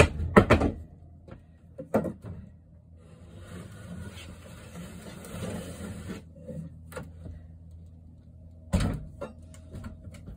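A wooden cabinet being wrenched loose and moved: sharp wooden knocks and bangs in the first second, scraping and rattling for a couple of seconds in the middle as it tips and slides over the floor, and another heavy thud near the end.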